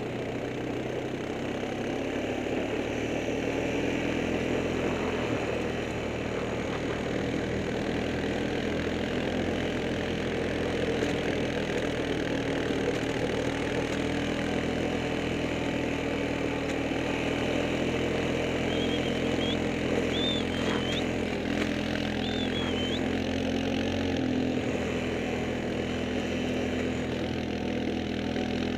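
Engine of a small off-road vehicle running steadily at low road speed, a low even drone that shifts pitch a little about three-quarters of the way through. A few short high squeaks come partway through.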